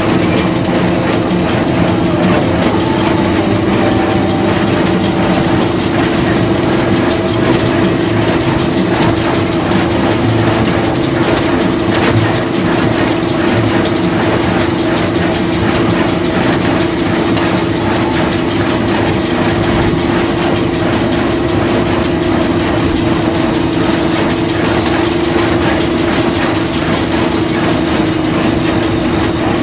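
Farm machinery running steadily: an engine drone with a constant hum under a dense mechanical clatter of gears and moving parts.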